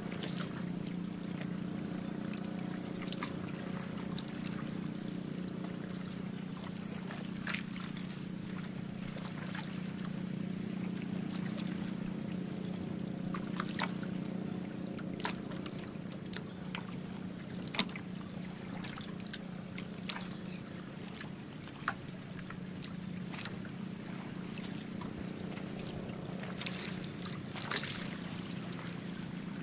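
Steady drone of a boat's engine underway, with water splashing and slapping against the hull now and then.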